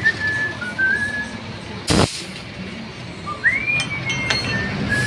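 Someone whistling a tune in short held notes that slide between pitches. About two seconds in there is a brief burst of rushing noise, and near the end a couple of light metal clinks.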